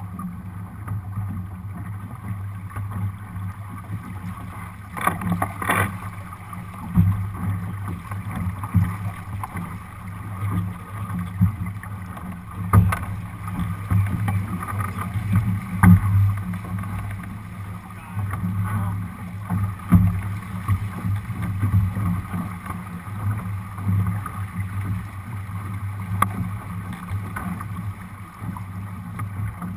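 A Lightning-class sailboat under way under sail: a steady low rush of water along the hull and wind, with a few sharp knocks now and then.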